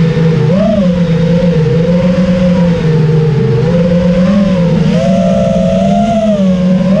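FPV racing quadcopter's brushless motors (T-Motor F60 Pro V2, 2700kv) and propellers whining loudly as heard from the camera on board, the pitch rising and falling with the throttle, with swells about half a second in and again around five seconds in.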